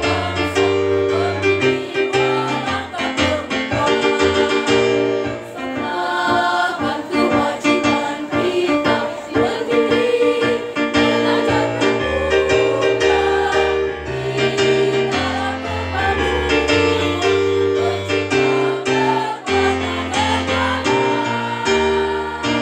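Women's choir singing together in several parts over a steady instrumental accompaniment with sustained bass notes changing every second or two.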